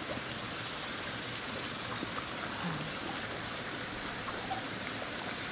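Creek water running with a steady, even rush.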